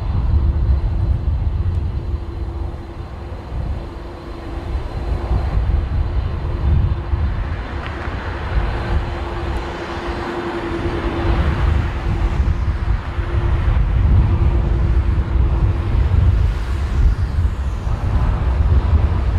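Jet airliner's engines on approach, a broad noise that swells through the middle and eases off, with a steady hum that stops a few seconds before the end. Strong gusty wind buffets the microphone with a heavy low rumble throughout.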